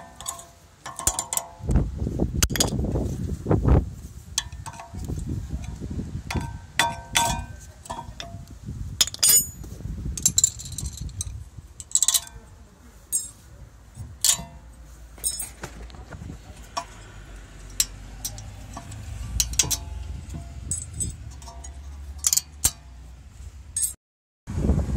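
Metal-on-metal clinks and scrapes of brake work: a screwdriver prying worn brake pads out of a VW Golf VI brake caliper, and the steel-backed pads and wrenches being handled, with many sharp irregular clinks. Dull low rumbles come and go from handling.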